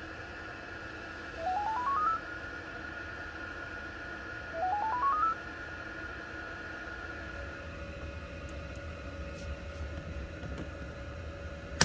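Two quick rising runs of electronic beeps, each about half a second long and a few seconds apart, over a steady low hum.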